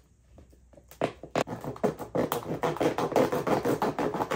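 Cutting around an opening by hand, heard as a fast, irregular run of crackling, scraping strokes that starts about a second in.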